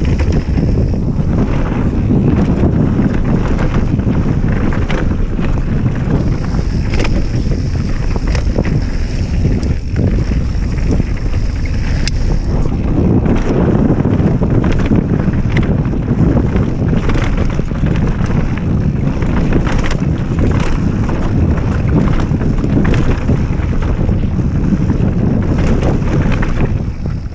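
Wind buffeting the microphone and tyre rumble as a mountain bike descends fast over a bumpy dirt trail, with frequent sharp clicks and rattles from the bike jolting over the bumps.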